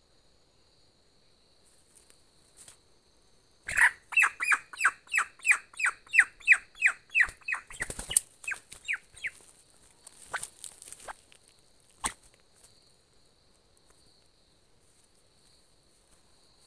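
A bird calling: a loud run of about fifteen short notes, each sliding downward, about three a second, lasting some five seconds and starting about four seconds in. A few brief scuffling noises follow. A steady insect buzz runs underneath.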